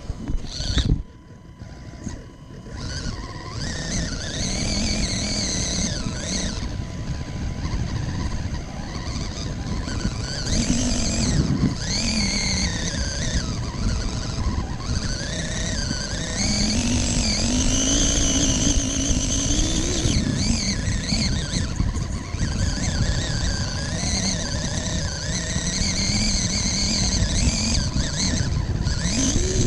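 RC rock crawler's electric motor and geared drivetrain whining from on board, the pitch rising and falling as the throttle changes, over tyres grinding through loose dirt and gravel. A few knocks in the first couple of seconds as the truck bumps over the terrain.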